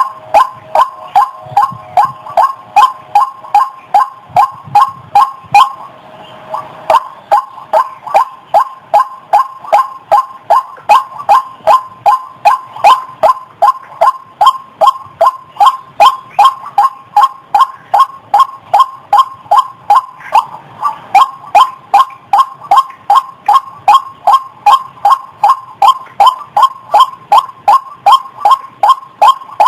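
White-breasted waterhen (ruak-ruak) calling in a monotonous, unbroken string of short, clipped notes, about two to three a second: a recorded lure call used to draw waterhens out of cover.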